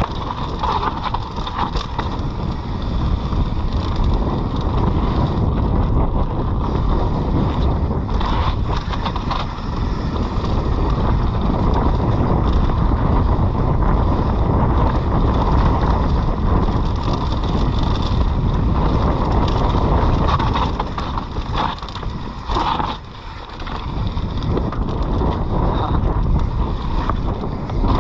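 Wind rushing over a mountain bike's on-board camera microphone and trail noise from the bike riding down a rough, wet trail, easing briefly about three-quarters of the way through.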